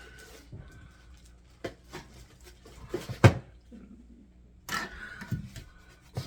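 Handling noises from unpacking a portable air conditioner and its parts: scattered knocks and rustles, the loudest a sharp thump a little over three seconds in.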